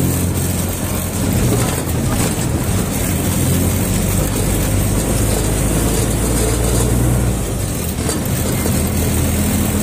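Steady engine drone and road noise of a moving vehicle, heard from inside its cabin while driving.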